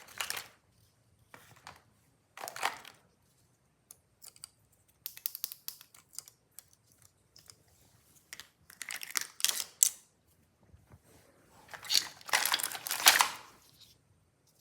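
Plastic toy parts being handled and pried apart: irregular clicks, rattles and scraping in short bursts, with the longest, loudest scraping near the end.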